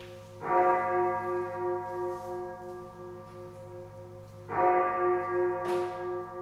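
A large bell struck twice, about four seconds apart, each strike ringing on with a slowly pulsing hum as it fades.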